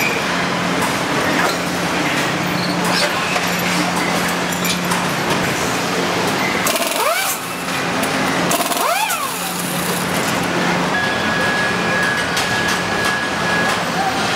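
Truck assembly-line noise: a steady hum with clattering and clicks. Twice, about seven and nine seconds in, a power nut runner whines up and then down as it drives fasteners. A steady high tone sounds for a couple of seconds near the end.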